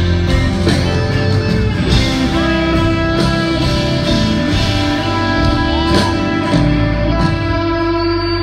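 Live country-rock band playing an instrumental passage: an electric guitar leads with bent notes over drums and strummed acoustic guitar. The drums stop about two-thirds of the way in, and a final chord rings out.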